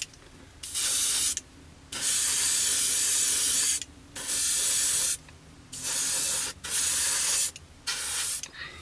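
Airbrush spraying paint in six short bursts of hiss, each about one to two seconds long, as the trigger is pressed and released to lay down a thick coat on a masked canopy.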